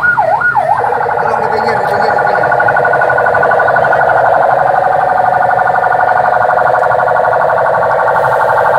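Electronic siren on a slow-moving pickup truck, loud: a few quick up-and-down sweeps in the first second, then a fast warbling tone held steady.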